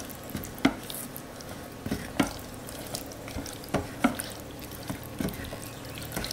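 Silicone spatula stirring saucy shredded chicken in a metal pressure-cooker inner pot: wet squelching and scraping, with irregular light knocks of the spatula against the pot wall.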